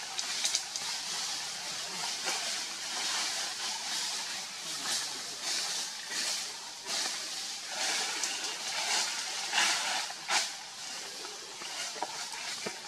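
A steady hissing noise, with irregular brief louder rustles and crackles.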